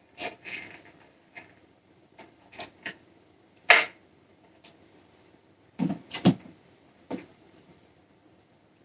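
Scattered sharp plastic clicks and knocks as a visor is worked onto a helmet's side mount and lock, the sharpest snap a little before halfway and a cluster of knocks about two thirds of the way in.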